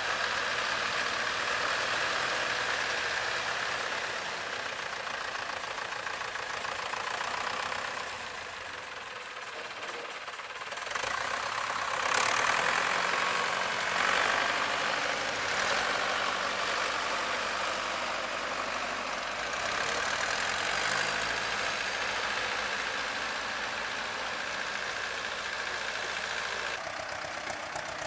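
Tractor diesel engines running steadily while a trailer is hydraulically tipped to dump chopped corn silage. The sound dips slightly and then grows louder about twelve seconds in.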